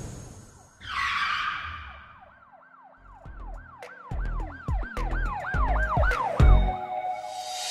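A whoosh, then a fast up-and-down siren wail, about three cycles a second, over deep bass thumps that build.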